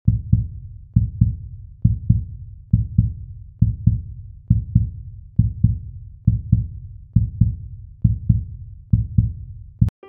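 Heartbeat sound effect: deep double thumps in a lub-dub pattern, a little faster than one beat a second, steady and even, ending just before the end.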